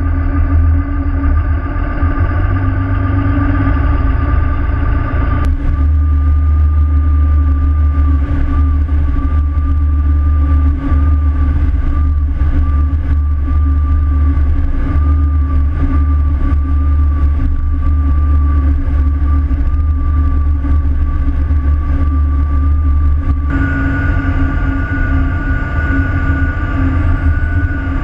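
Pilot boat's engines running steadily under way: a heavy low rumble with a steady hum and a thin, slightly wavering whine. The sound shifts suddenly about five seconds in, and again near the end, when a second, higher whine joins.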